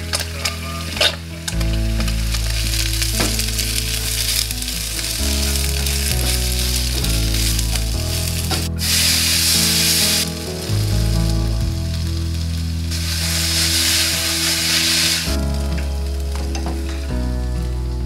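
Food sizzling as it fries in oil in a nonstick pan: tofu slices at first, then noodles being stir-fried with a spatula. The sizzle swells loudest twice, about nine and thirteen seconds in, while the noodles are tossed.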